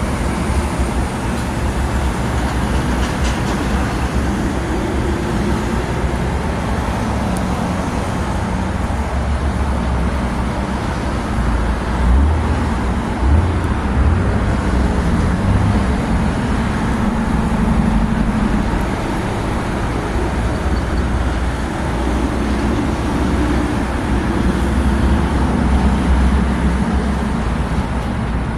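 Road traffic passing on a busy multi-lane road: a steady rush of car and truck engines and tyres, swelling as heavier vehicles go by about twelve seconds in and again near the end.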